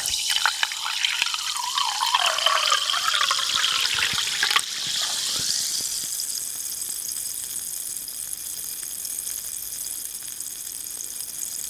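Sparkling water poured from a plastic bottle into a ceramic mug, heard through a microphone clipped inside the mug. The pour stops about four and a half seconds in, and the carbonated water keeps fizzing in the mug, slowly fading.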